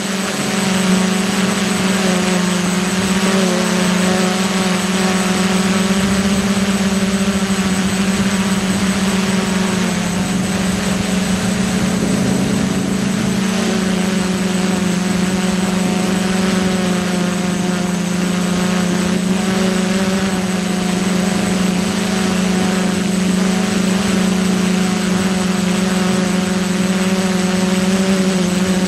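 DIY multirotor drone's electric motors and propellers running with a steady buzzing hum, picked up close by the drone's own onboard camera.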